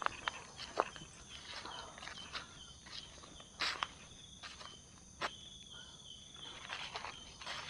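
Night-time forest insects chirring in a steady high drone, with irregular crackling footsteps on dry leaf litter and a few sharper snaps on top.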